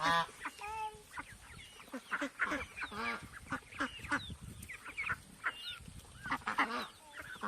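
A flock of domestic fowl calling: many short, overlapping cries, one after another.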